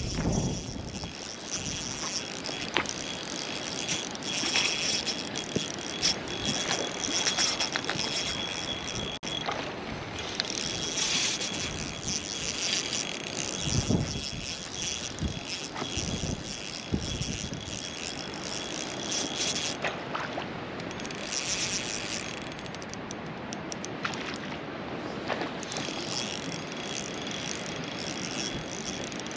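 Spinning reel being cranked steadily as a lure is retrieved. The winding stops for a few seconds about two-thirds of the way through, then starts again.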